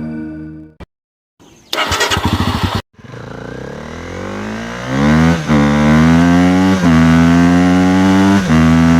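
Motorcycle engine: about a second of fast chugging as it fires up. After a brief gap it climbs steadily in pitch and then runs loud at high revs, with three brief dips in pitch like gear changes.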